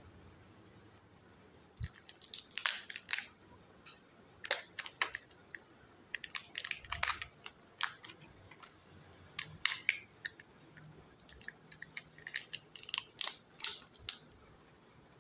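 Plastic Kinder Joy egg shell and its foil seal crinkling and crackling as they are handled, pulled apart and peeled, in about five short crackly bursts with pauses between.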